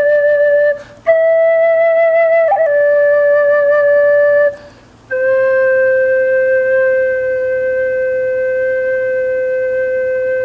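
Wooden svirel, a Russian end-blown flute, playing slow held notes: one note, a short breath, a higher note stepping down, then after another breath a long low note held for about six seconds.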